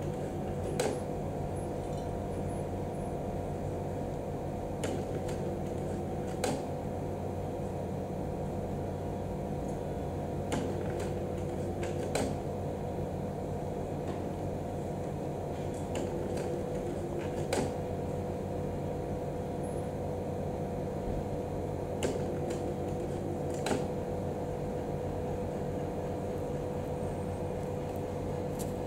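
Steady machine hum holding several fixed pitches. Soft clicks recur in pairs about a second and a half apart, a pair roughly every five and a half seconds.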